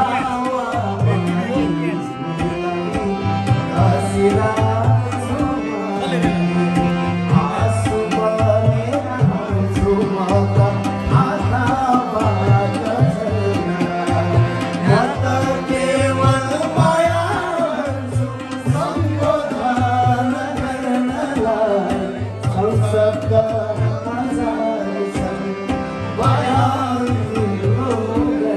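Live male singing over a harmonium, with steady hand-drum accompaniment keeping a regular beat.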